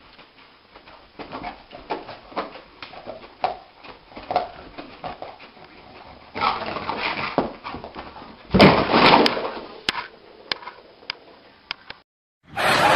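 Sleeping dog whimpering and yipping in a dream, a string of short soft cries with a louder outburst past the middle.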